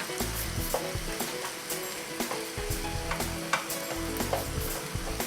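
Wooden spoon stirring a meat-and-lentil bolognese sauce in a sizzling non-stick frying pan, with scattered light knocks of the spoon against the pan.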